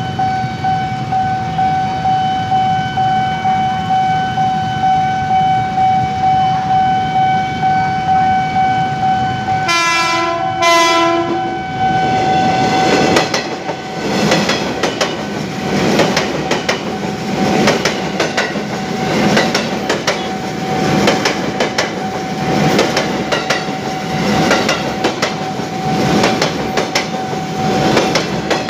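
A level-crossing warning signal sounds a steady electronic tone. About ten seconds in, a KRL electric commuter train gives two short horn blasts, then runs past over the crossing with a rhythmic clickety-clack of wheels over the rail joints, while the warning tone keeps sounding.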